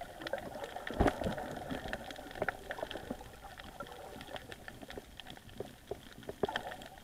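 Underwater sound on a reef: a steady scatter of small crackling clicks over a low water hiss, with one louder knock about a second in.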